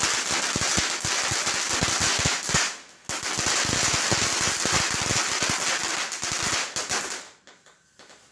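Fountain firework spraying sparks with dense, rapid crackling. It drops out briefly about three seconds in, resumes, then dies away about seven seconds in.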